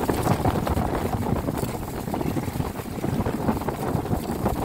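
Wind buffeting the microphone in uneven gusts over the sea noise around a small outrigger fishing boat on choppy water.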